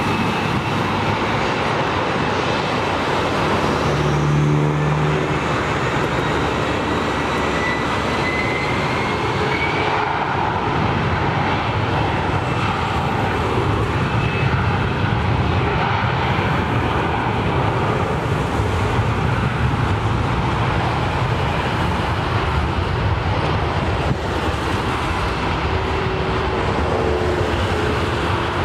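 Twin-engine Gulfstream business jet on its takeoff roll, its engines at high power in a steady jet rush. A thin whine rises in pitch about eight to ten seconds in.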